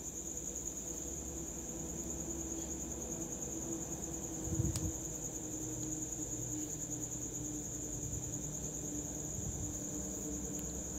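Low steady hum of an electric foot spa tub running, under a steady high-pitched trill. A soft thump comes about four and a half seconds in.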